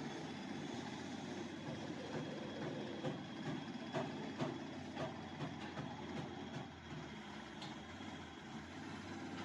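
Steady low mechanical rumble, with a few sharp knocks about four to five seconds in.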